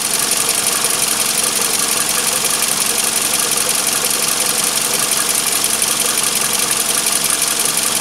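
Toyota 2AZ-FE 2.4-litre four-cylinder engine running steadily, an even mechanical hum with hiss and no change in speed.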